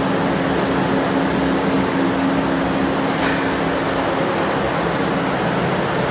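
Steady mechanical drone of a conveyor assembly line's curved belt conveyors and drive motors running: an even hum under a constant noisy rush.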